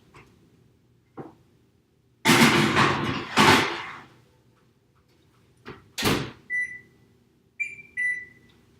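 Oven being loaded: a long noisy stretch as the door opens and the tray goes in, the door shutting with a thud about six seconds in, then three short electronic beeps from the oven's control panel.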